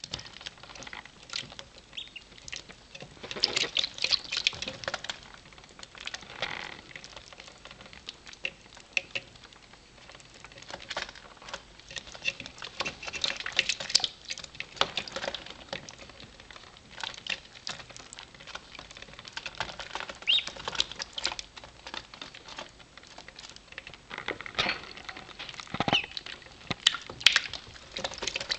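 Welsh Harlequin ducklings peeping in short high calls, with irregular light pattering and scratching of small feet and bills on a hard surface.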